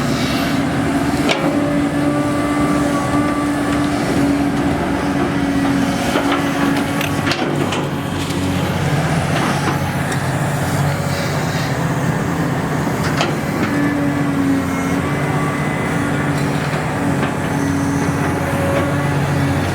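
Excavator's diesel engine running steadily under work, its note shifting down and back up a few times, with a few sharp knocks over the top.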